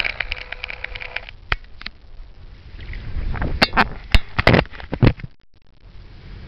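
Rapid small splashes and clicks from a hooked yellowfin seabream at the water surface, then a run of loud knocks and rubbing thumps as the camera is handled and swung around.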